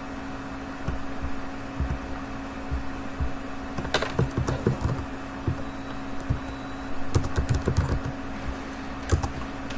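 Typing on a computer keyboard: scattered key clicks, with a quick run of keystrokes a little past the middle, over a steady low hum.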